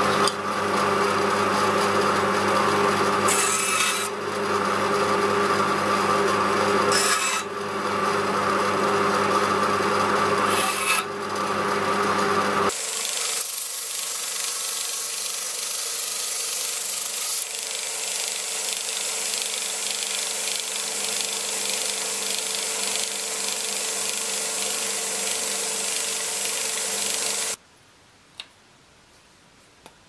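A bandsaw runs and cuts through a wooden dowel, with three short, sharper cutting passes. Then a disc sander grinds a small wooden piece held against its sanding disc, a steady hissing rasp that stops suddenly near the end.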